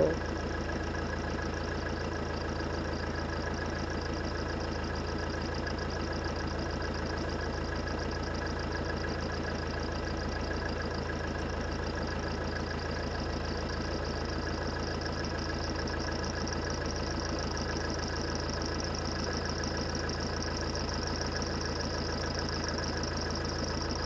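Idling engine running at an even pitch: a low hum with a fixed set of higher tones above it. It does not change throughout.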